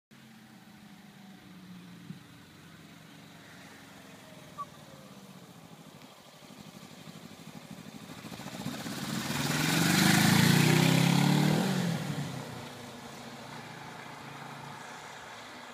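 Sport motorcycle engine approaching, passing close by about ten seconds in, and fading as it rides off down the street. Its pitch drops as it goes past.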